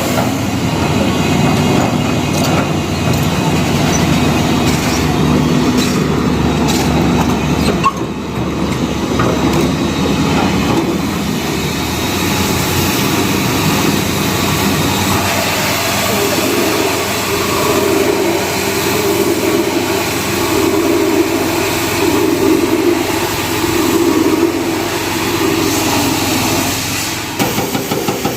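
Diesel engines of earth-moving machinery running steadily at work, with a brief break about eight seconds in and an evenly pulsing engine beat near the end.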